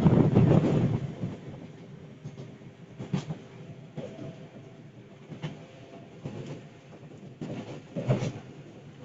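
Interior of a KRL Commuterline electric train carriage under way: a steady running rumble, loudest in the first second, with scattered clacks of the wheels over the rail joints.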